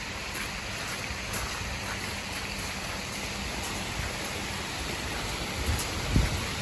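Many arching water jets of a large fountain splashing into its pool: a steady rushing hiss. A brief low bump near the end.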